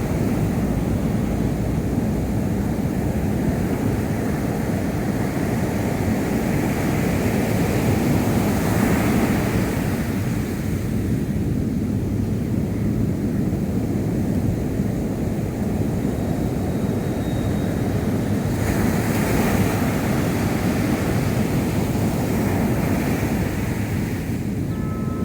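Sea surf breaking on the shore: a continuous rush of water with a heavy low rumble, swelling into louder hissing breakers a few times. Wind buffets the microphone.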